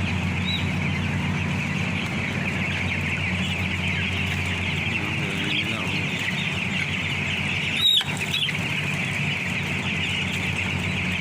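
A large flock of broiler chickens in a poultry house, a dense, continuous chorus of peeping and clucking over a steady low machine hum. A single sharp knock about eight seconds in.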